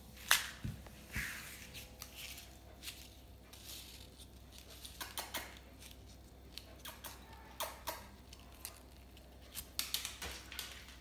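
Light handling sounds on a wooden floor around a crumpled paper ball: a sharp tap about a third of a second in, a couple of low thuds, then scattered small clicks and crinkles.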